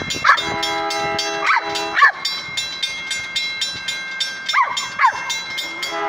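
Railroad crossing bell ringing in rapid, even strikes, about four a second, while a Cavapoo gives five short whining cries that fall in pitch. A train horn chord sounds for about a second near the start.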